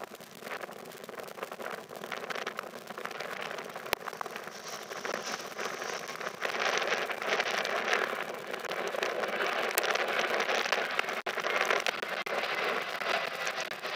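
Boeing 737-800's CFM56-7B turbofan engines at take-off thrust as the airliner climbs away after lift-off: a steady, rough jet noise that grows louder about six and a half seconds in.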